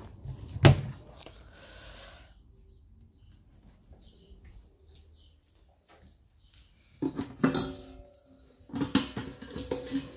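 A plastic storage bin's latch snapping open with one sharp click, then stainless steel dog bowls clattering and ringing as they are handled and lifted out of a wooden stand, in two bursts near the end.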